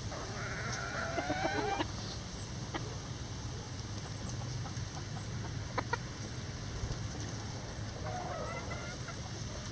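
Chickens in a mixed flock calling: a drawn-out call about a second and a half long right at the start and a shorter one about eight seconds in, with a few faint clicks in between.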